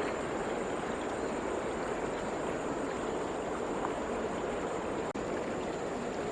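Steady rushing outdoor noise like flowing water, with a thin high steady whine over it; the sound drops out for an instant about five seconds in.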